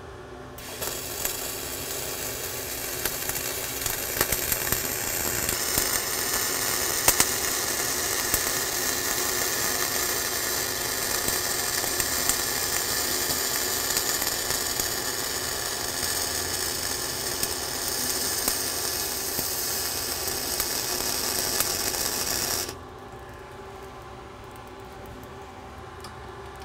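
Flux-core arc welding overhead on a beveled plate: the arc strikes about a second in and burns with a steady crackling hiss and sharp spatter pops for about twenty seconds, then cuts off suddenly as the cap pass is stopped.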